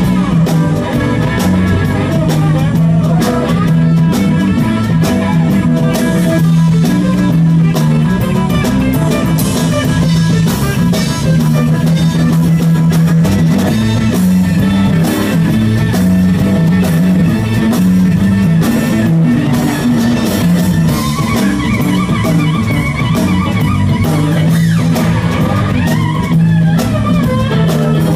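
Live rock band playing: electric guitars over bass and drums, with no singing to be made out.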